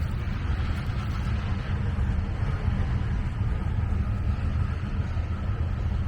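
Freight train rolling past: a steady low rumble of wheels on the rails with an even hiss above it.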